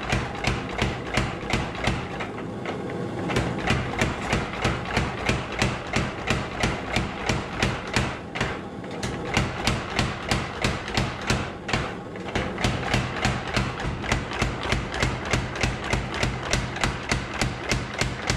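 Power hammer beating a red-hot steel blade blank in a fast, even run of blows, about three a second, over the steady hum of its motor. The blows break off briefly about two, eight and twelve seconds in as the blank is moved.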